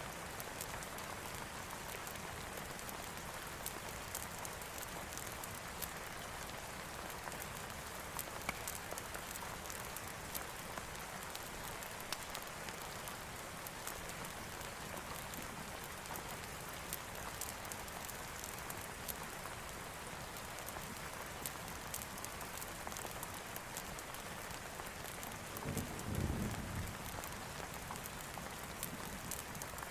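Steady heavy rain falling on a surface, with scattered sharp crackles and clicks through it. About four-fifths of the way through, a brief low rumble swells and fades, like distant thunder.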